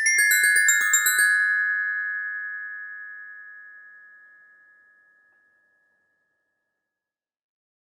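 Glockenspiel played in a quick descending run of about a dozen notes, which then ring on and fade away over several seconds.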